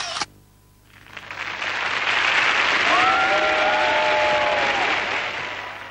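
Recorded applause and cheering that swell in about a second in, are loudest in the middle with a few drawn-out pitched cries over them, and fade near the end. A short hissing burst comes at the very start.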